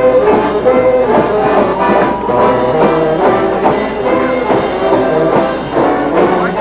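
Mummers string band playing a lively tune, with banjos and saxophones.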